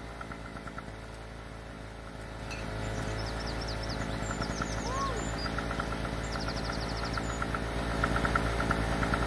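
Birds chirping outdoors, with short falling chirps and a quick even trill about six seconds in, over a steady low hum like a distant idling engine.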